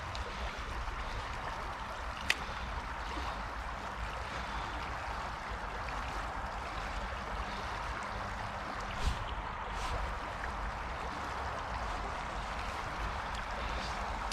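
Small stream flowing in a steady rush of water, with a single sharp click about two seconds in and a short knock about nine seconds in.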